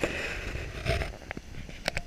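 Surf breaking and washing over a pebble beach, with wind buffeting the microphone and a few sharp clicks.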